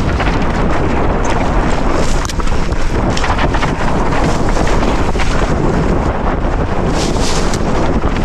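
Wind rushing over the camera microphone on a fast mountain-bike descent, with tyres on a dry, loose dirt trail and sharp rattles of the bike over bumps now and then.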